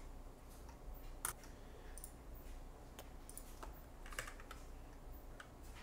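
Faint, scattered keystrokes on a computer keyboard, a handful of separate clicks with pauses between them.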